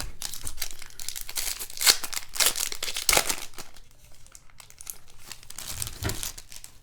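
Foil trading-card pack wrapper crinkling and tearing as it is opened, loudest in the first half and tailing off into lighter handling rustle.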